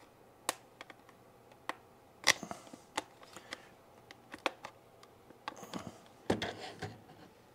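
Plastic separator tool prying at the case seam of a DJI RC smart controller: sharp plastic clicks and ticks at irregular intervals, then a denser run of clicks and scraping about six seconds in.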